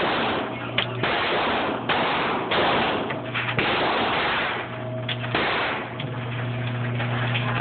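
Handgun shots in an indoor range, several of them spaced irregularly about half a second to two seconds apart, each followed by a long echo off the range walls.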